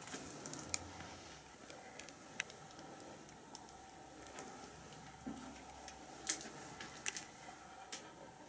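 Scattered sharp clicks and small crunches of rubble and debris shifting underfoot, about five louder ones spread irregularly, over a faint steady hum.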